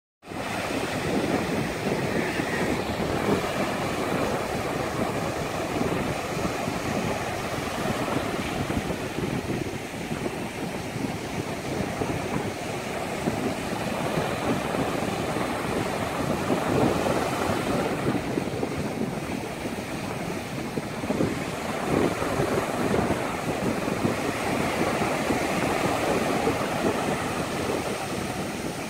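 Small waves breaking and washing up on a sandy beach, with wind on the microphone.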